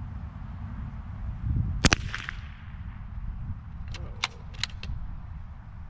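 A single .22 LR rimfire shot from a Bergara B14R bolt-action rifle about two seconds in. About two seconds later come four quick, lighter clicks as the bolt is worked to chamber the next round.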